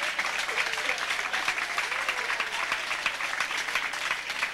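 Guests applauding, many hands clapping steadily.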